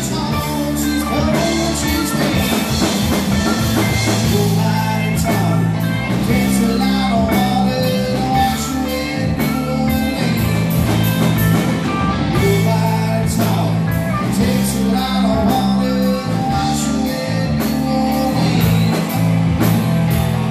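Live rock band playing: electric guitars, bass guitar and a drum kit with a steady beat.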